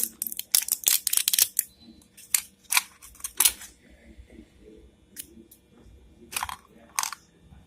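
Plastic packaging crinkling and clicking as a vape pod cartridge is unwrapped and handled: a dense run of crackles for about the first two seconds, then scattered single clicks and taps.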